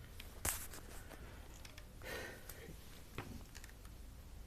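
Handling noise of a power cord being connected to an extension cord: a sharp click about half a second in, a brief rustle around two seconds, and a lighter click a second later, over a low steady hum.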